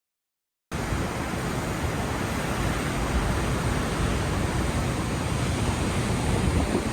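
Steady wind noise on the microphone over ocean surf, cutting in suddenly after a moment of silence.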